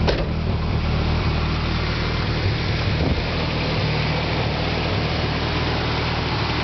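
2001 Ford Ranger's 2.5-litre four-cylinder engine idling steadily on its first run after a timing belt replacement.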